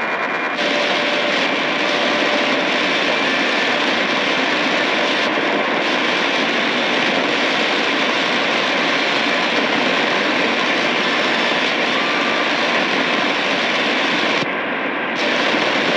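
Shortwave static from a Tecsun PL-880 radio scanning through empty frequencies: a loud, steady hiss with a few faint short whistles. The top of the hiss drops out briefly about five seconds in and again near the end.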